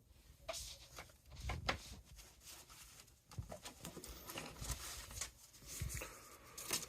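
Irregular light clicks, knocks and rustling from something being handled by hand.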